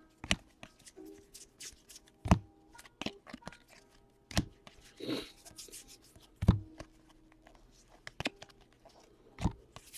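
Soccer trading cards being handled and flipped through by hand: soft rustling and sliding of card stock, with a sharp tap about every two seconds as cards are set down.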